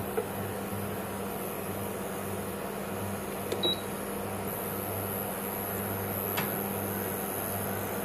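Induction cooktop humming steadily with its cooling fan running while a pot of tamarind water heats toward the boil. A light knock about three and a half seconds in, and a faint high whine from about halfway.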